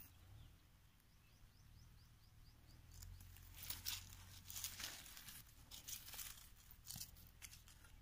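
Faint rustling and crackling handling noise, a cluster of short bursts between about three and seven seconds in, from a hand moving a held bird's feathers over dry leaf litter.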